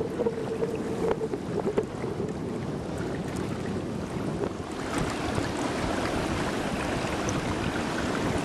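Wind buffeting the microphone over water rushing along a sailing kayak's hull, a steady rushing noise that turns hissier about halfway through.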